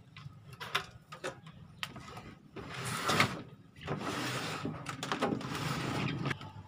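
A heavy CRT television being handled and swivelled round on a work surface: a few knocks, then its plastic cabinet scraping and sliding, loudest about three seconds in, and again for about two seconds near the end.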